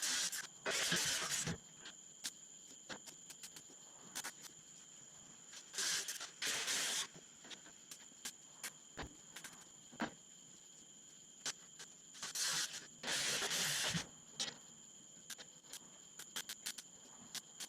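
Welding arc laying short tacks: four bursts of crackling hiss, each about a second long, with scattered sharp clicks between them and a faint steady high whine underneath.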